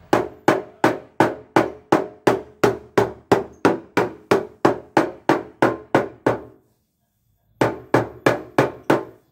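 A block of wood striking the sheet-steel door of a Suzuki Carry, about three blows a second, each ringing briefly in the metal. The blows stop for about a second, then five more follow. The door panel is being beaten back into shape.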